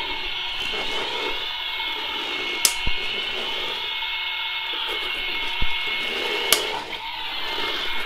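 Honestly Cute battery-powered toy vacuum cleaner running, making a steady whir as it is pushed across carpet, with two sharp clicks partway through.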